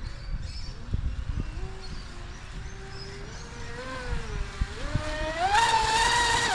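Traxxas Disruptor RC boat's motor whining across the water, its pitch wandering at part throttle, then rising steeply about five seconds in as it is throttled up and falling away at the very end.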